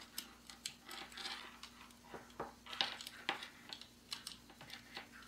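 Small plastic clicks and scrapes as a cable plug is fumbled against the socket of a small black power adapter, being handled and tried but not plugged in, over a faint steady hum.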